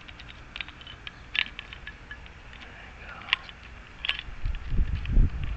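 Small metal lock parts being handled and fitted together: scattered light clicks and ticks, then a few dull low thumps near the end.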